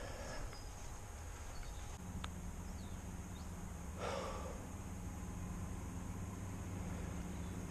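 Low rumble of wind and handling on the microphone on an open common, with a brief breathy puff about four seconds in. A steady low engine hum from a distant vehicle comes in about two seconds in and holds.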